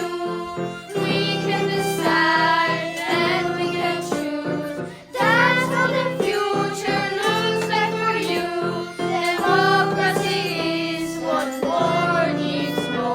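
Song with students' voices singing a melody over a steady instrumental backing.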